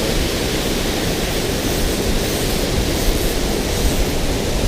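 Steady, loud rush of water pouring through a dam spillway.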